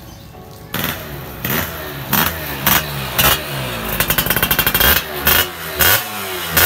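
Yamaha Fiz R two-stroke moped's engine, breathing through an AHM aftermarket exhaust, revved in short sharp throttle blips, with the engine speed falling back after each. It starts less than a second in, with a quick run of rapid blips around the middle.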